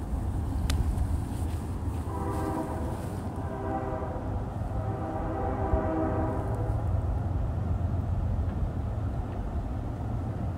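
Distant Nathan Airchime K5HL locomotive air horn, narrow-font bells, sounding two chords: a shorter blast about two seconds in, then a longer one a second later, over a steady low rumble. A single faint click comes just before the first blast.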